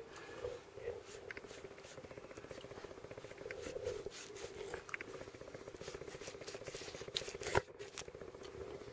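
Soft scrapes and light taps of a silicone pastry brush dabbing beaten egg around the pastry rim of a pie, over a faint steady hum. One sharp click near the end.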